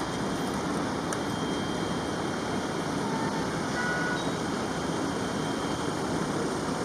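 Steady rumble of emergency vehicles idling with engines running, with no sudden sounds.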